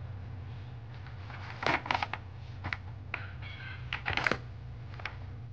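A cardboard perfume box with a clear plastic window being handled: a scatter of light clicks, taps and rustles over a few seconds, with a steady low hum underneath.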